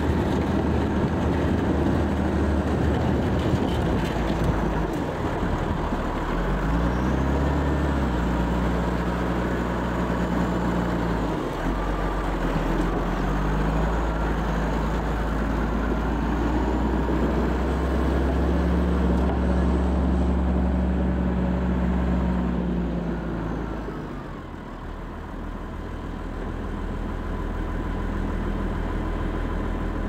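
Tractor engine running as it drives up, over a steady rushing noise. Its pitch climbs a few seconds in, dips briefly, holds steady, then fades away about six seconds before the end.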